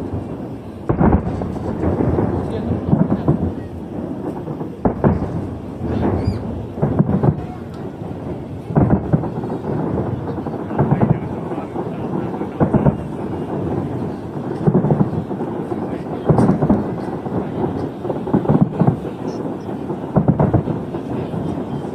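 Aerial fireworks bursting in a steady series of deep booms, one every second or two, with a few faint rising whistles from shells climbing.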